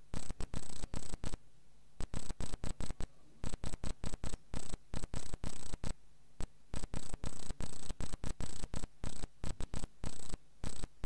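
A pause in the recitation filled with rapid, irregular crackling of static from the recording, stuttering on and off many times a second over a faint steady hum.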